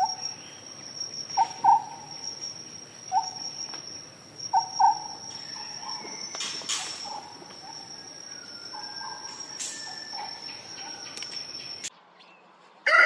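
A steady high-pitched insect trill, like crickets, with short calls from another animal, often in pairs, every second or two. The sound cuts off about a second before the end.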